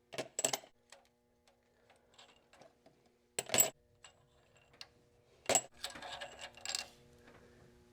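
Metal tools and engine parts clinking and clattering during an engine teardown: two sharp clinks at the start, another loud one about three and a half seconds in, then a clink and a short rattle near the end. A faint steady hum runs underneath.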